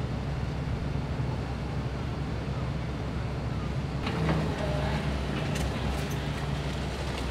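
Heavy construction machinery running: a steady low diesel drone, with scattered knocks and clatters from about halfway through.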